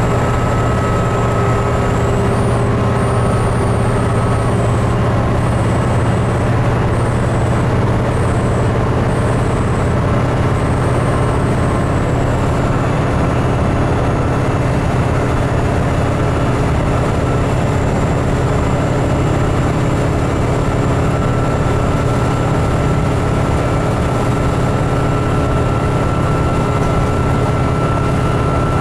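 Inside a 2008 New Flyer D40LFR diesel bus on the move: a steady, unbroken engine drone with road and tyre noise. A thin high whine wavers over the first dozen seconds, then settles.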